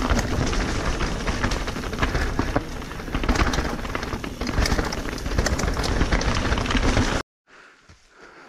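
Canyon Spectral AL 5.0 mountain bike descending a wet, rocky forest trail, heard from an on-bike action camera: tyres rolling and splashing over wet dirt and stones, with many small knocks and rattles from the bike and a heavy low rumble. About seven seconds in the sound cuts off suddenly to a much quieter scene.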